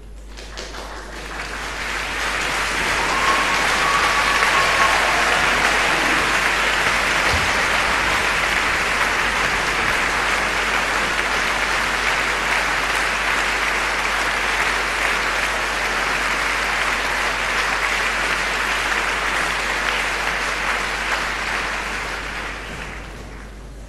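Concert-hall audience applauding, swelling over the first few seconds, holding steady, then dying away near the end.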